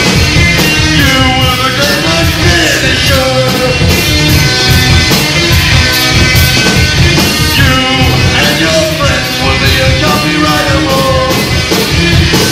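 Live rock band playing loud: guitars and drums over a steady beat.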